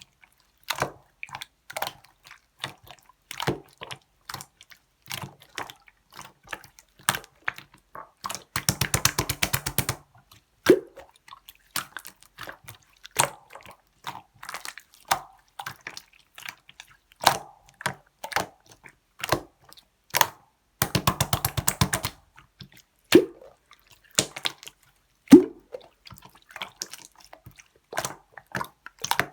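Clear slime being squished and pressed by hand, giving scattered wet pops and clicks. Twice, a rapid run of fine crackling clicks lasts a second or so.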